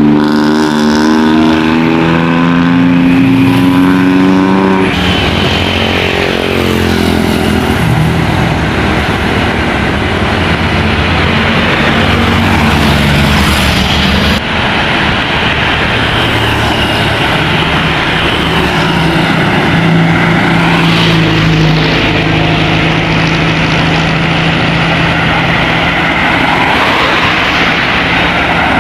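Tour bus engine revving as the bus accelerates, its pitch climbing for the first five seconds, then dropping as it passes by. Steady road and engine noise from passing traffic follows.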